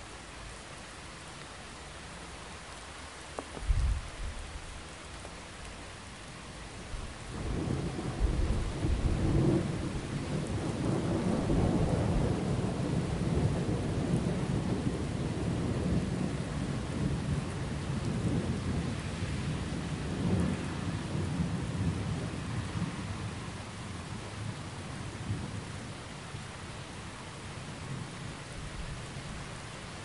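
Steady rain with thunder: a sharp crack about four seconds in, then a long low rumble that swells from about seven seconds and slowly fades away.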